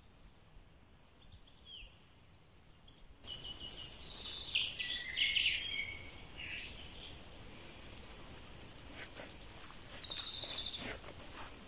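Songbirds singing in woodland: a varied burst of song about four seconds in, then a rapid trill that falls steadily in pitch near the end, over faint background hiss.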